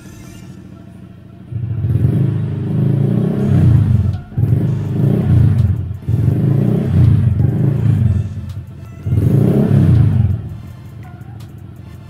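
Honda Click Game Changer scooter's single-cylinder four-stroke engine through a replica Akrapovic muffler with its silencer insert removed: idling, then revved hard four times in bursts of one to three seconds, dropping back to idle between them and after the last.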